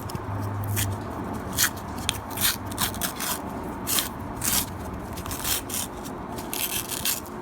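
A paper-wrapped roll of half dollar coins being cracked open and unwrapped: paper crackling and coins clinking, in a string of sharp clicks and rustles.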